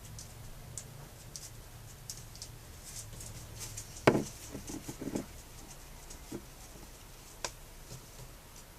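Heavy breathing of a late-term pregnant animal: short, irregular huffs and crackles, with one sudden louder sound about four seconds in and a few shorter ones just after.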